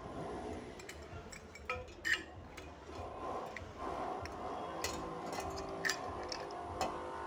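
Scattered light clicks and knocks of a gate lamp's black metal frame parts being handled and fitted together, a few sharper taps among them.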